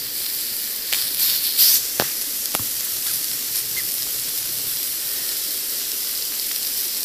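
Raw steak sizzling on a flat rock heated in a bed of coals: a steady hiss starting the moment the meat goes down, with a few sharp pops and crackles in the first couple of seconds.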